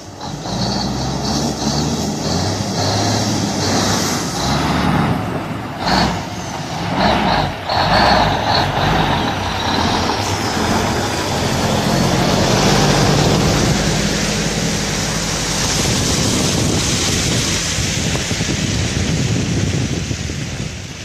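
Diesel engine of a heavy tractor-trailer truck running under load as it drives through a flooded, muddy dirt track, with a couple of loud sharp thumps in the middle.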